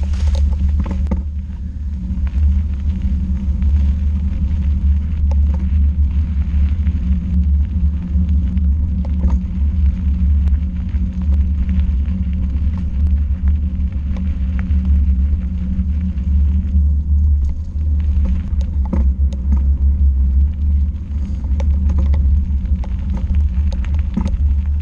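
Wind buffeting and tyre rumble picked up by an action camera mounted on a bicycle riding a dirt track: a steady low rumble with scattered clicks and rattles as the bike goes over bumps.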